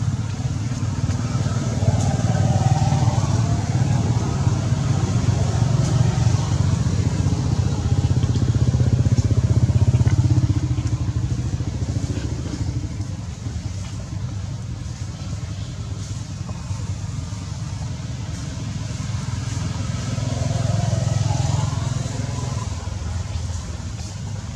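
Motor vehicles passing, a low engine rumble that swells twice, with a faint rising engine note during the louder stretches.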